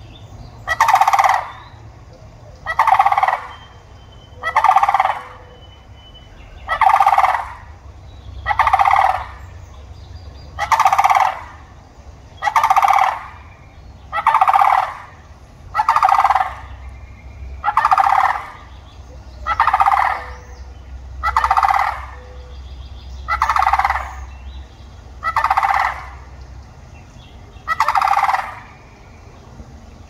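Sandhill crane giving its rattling call over and over, about one call every two seconds, some fifteen calls in all.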